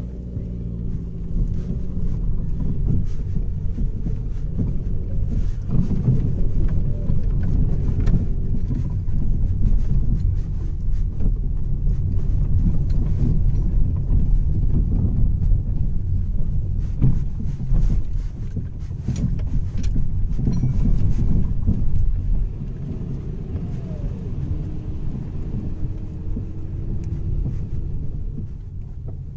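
A motor vehicle running: a steady low rumble with faint engine tones that shift slightly in pitch, a little quieter for the last several seconds.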